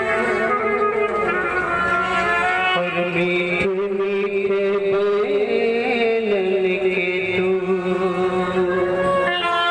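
Indian wedding band playing: a melody of long held notes that slide from one pitch to the next, over the band's accompaniment.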